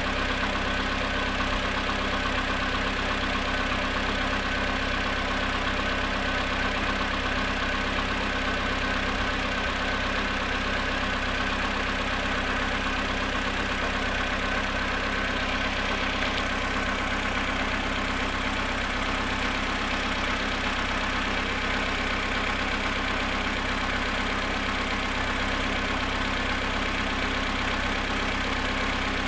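Volkswagen Polo Sedan's petrol engine idling steadily, cold after standing 22 hours at −2 °C, with the engine knock it shows when cold.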